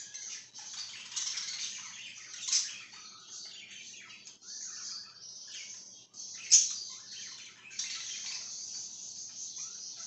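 A flock of budgerigars chattering and chirping together in a continual warble of short calls, with two louder sharp calls, about two and a half and six and a half seconds in.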